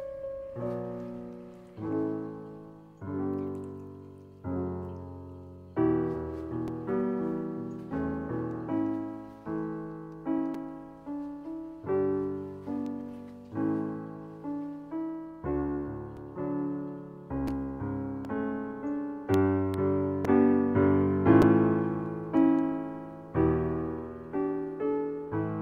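Solo piano music: a steady run of notes and chords, each struck and left to fade, one or two a second.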